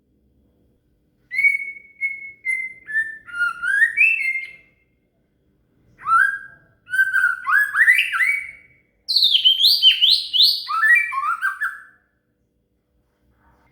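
White-rumped shama (murai batu) singing: three bouts of clear, varied whistled phrases with quick sliding notes, separated by short pauses.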